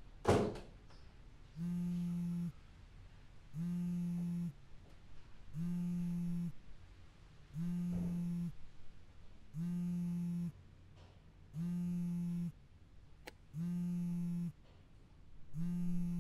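A sudden thump just after the start, then a mobile phone on vibrate buzzing against a fabric sofa cushion, an incoming call: eight buzzes of about a second each, two seconds apart. A faint click comes about two-thirds of the way through.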